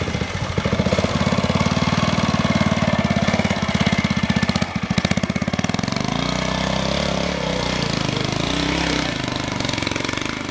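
Classic trials motorcycle engine running at low revs through a section, with a rapid, even firing beat. About six seconds in, the sound changes to a steadier engine note.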